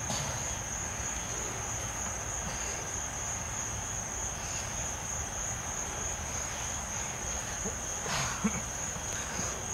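Crickets trilling steadily in one continuous high band. About eight seconds in there is a short scuffling noise from the two grappling bodies.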